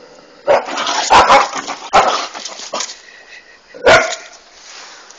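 A dog barking: a quick run of loud barks over about two seconds, then a single bark close to four seconds in.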